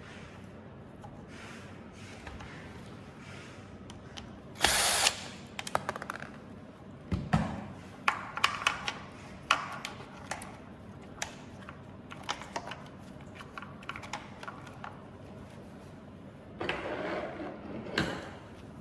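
Parts and tools clicking and knocking during hands-on disassembly of a belt sander's stator and switch. There are scattered sharp clicks throughout, with two short, louder bursts of noise, one about five seconds in and one near the end.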